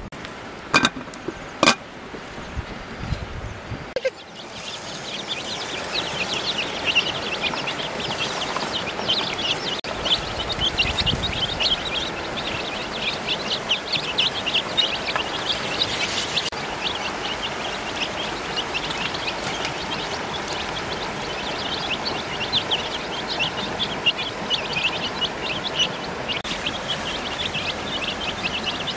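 A few sharp knocks, then from about four seconds in a crowd of ducklings and chicks peeping nonstop, many high chirps overlapping.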